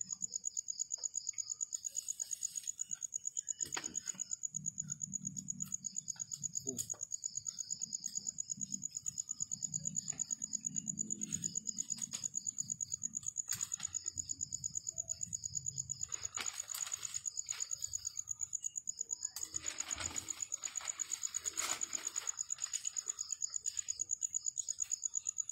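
A high, rapidly pulsing insect chirp, such as a cricket, goes on steadily, with paper rustling and crinkling as a sheet is handled and folded, heaviest in the second half.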